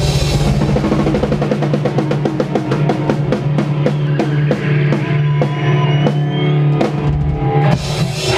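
Live post-hardcore band playing: a run of even drum hits over a held guitar and bass chord, the hits spreading out as they go and closing with a loud crash near the end, the ending of a song.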